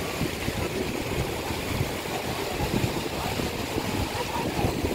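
Floodwater rushing over a submerged low river bridge: a steady rush with a low, uneven rumble.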